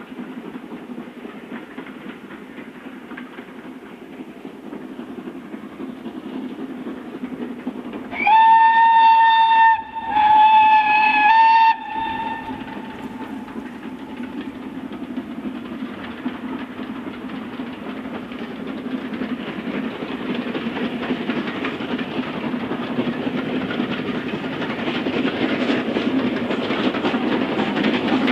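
Steam locomotive hauling a train of coaches, its running noise steadily growing louder as it approaches. About eight seconds in, its steam whistle sounds two loud blasts, each about a second and a half long, with a short gap between them.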